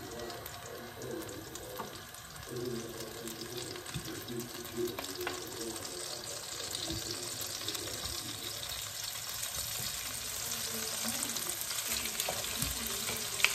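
Butter sizzling in a hot frying pan, the sizzle growing louder partway through. Marinated shrimp are tipped in and stirred with a wooden spatula, with a few light clicks of utensils on the pan.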